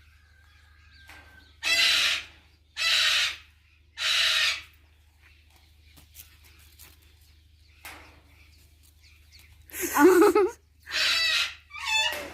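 Parrots squawking: three harsh calls about a second apart, a pause of about five seconds, then three more in quick succession.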